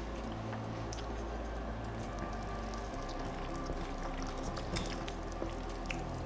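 Soft background music with slowly changing low notes, under faint scattered clicks of eating from a spoon.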